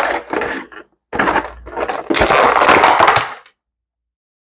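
Clear plastic packaging crinkling and crackling as it is handled and pulled apart, in two stretches that stop about three and a half seconds in.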